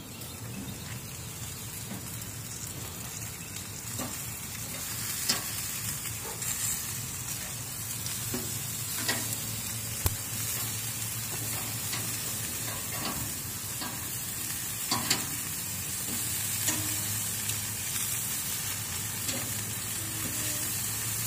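Chicken drumsticks sizzling on a hot grill, a steady hiss, with a few sharp clicks of metal tongs against the meat and grate as the pieces are turned.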